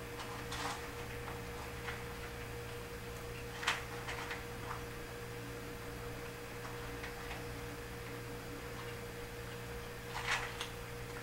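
Kittens eating from a bowl: a few short clicks and crunches of kibble against the bowl, the loudest near four and ten seconds in, over a steady electrical hum.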